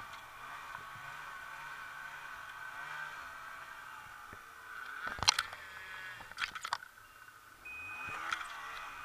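Snowmobile engine running at a steady cruise with a high whine. A couple of sharp knocks and scrapes come a little past the middle, and short high beeps begin repeating about once a second near the end.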